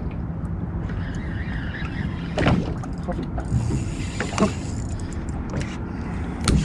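Boat's outboard motor running low and steady while trolling, with a few sharp knocks on top.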